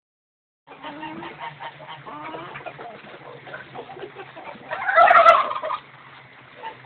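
A flock of chickens and turkeys clucking and calling over one another while feeding, with a louder burst of squawking and calling about five seconds in.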